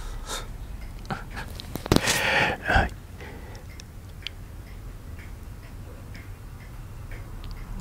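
Two short breathy whispers close to the microphone in the first three seconds, then faint, scattered small clicks over a low background hum.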